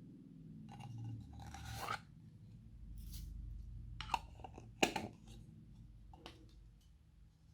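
Glossy slime being worked and mixed by hand: sticky rubbing and swishing with a few sharp pops and clicks a little past the middle.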